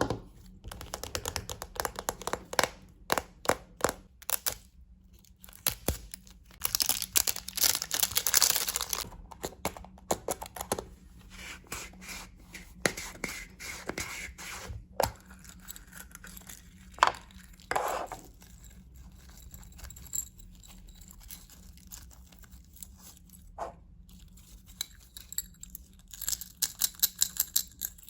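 Hands unwrapping Kinder Surprise eggs: foil and packaging tearing and crinkling, with scrapes and sharp taps and clicks coming in irregular bursts, and a quick run of taps near the end.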